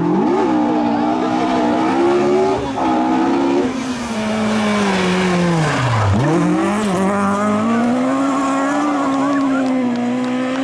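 Ford Escort rally car's engine revving hard with its pitch swinging up and down as the car slides sideways, dropping sharply about six seconds in and climbing back. Tyres are sliding alongside it.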